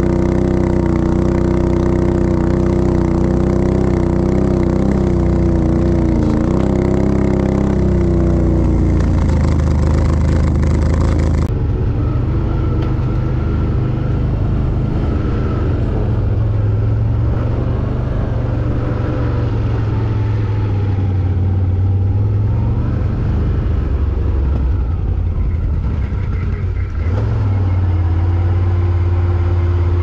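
ATV (quad bike) engine running under way, its note rising and falling with the throttle, with a sudden change in sound about a third of the way through.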